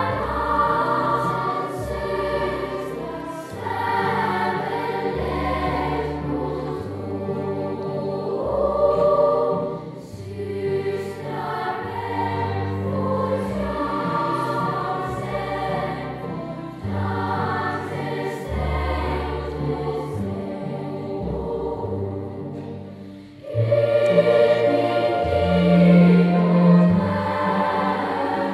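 A large children's choir singing with instrumental accompaniment, steady low bass notes under the voices. The sound drops away briefly about three quarters of the way through, then comes back louder.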